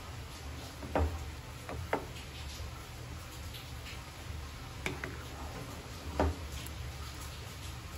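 Wooden spatula knocking and scraping against a steel pot while stirring boiling mango syrup. There are a handful of sharp taps, the loudest about a second in and just after six seconds, over a low steady hum.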